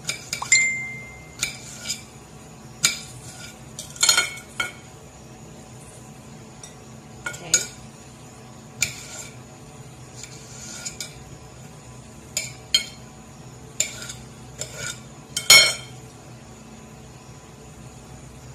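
Cutlery and ceramic dishes clinking: a utensil knocks and scrapes against plates and bowls while fruit pieces are served out, a dozen or so separate clinks at irregular gaps, the loudest about four seconds in and again near the end.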